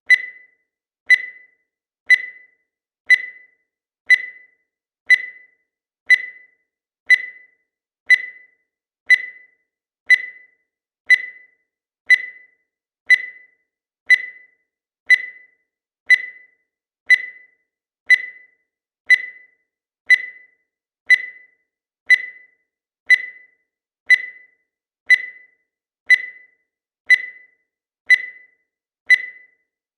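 Digital timer beeping once a second, counting down: short high beeps, each fading out quickly, with silence between.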